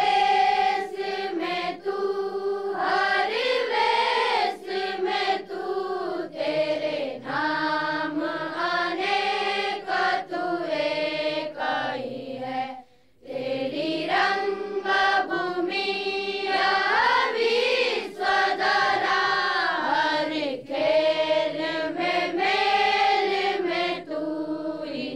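A group of voices singing a slow prayer chant in unison, with long held notes and a brief pause about halfway through.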